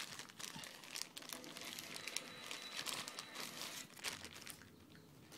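Crinkling of a clear plastic wrapper handled close to the microphone: irregular crackles, easing off near the end.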